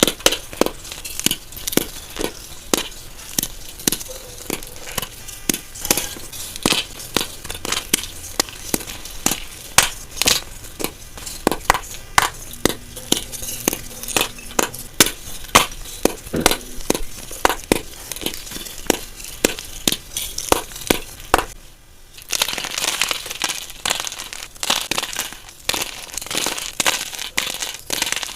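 Glittered chalk pieces being snapped one after another, a sharp crisp snap about every half second or so. About 22 seconds in, the snapping gives way to a denser, continuous crunching as the chalk is crushed.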